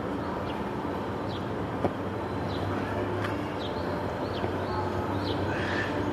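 Steady outdoor din with a low machine hum, over which small birds give short, high, downward-sliding chirps every second or so; a single sharp click sounds a little under two seconds in.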